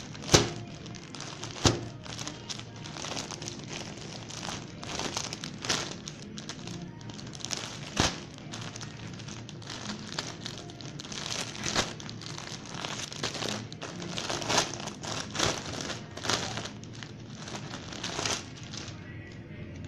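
Cloth garments rustling and crinkling as they are handled and folded, with a few sharp knocks, the loudest just after the start.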